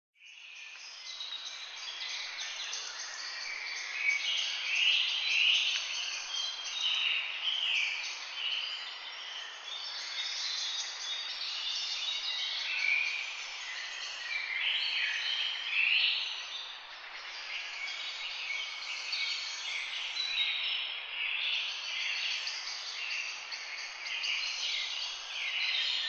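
A dense chorus of many birds chirping and singing over one another without a break.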